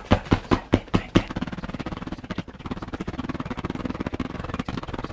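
An open hand repeatedly slapping a paper watercolour drawing: sharp separate slaps about five a second, then, about a second in, a fast continuous patter of quicker, quieter slaps.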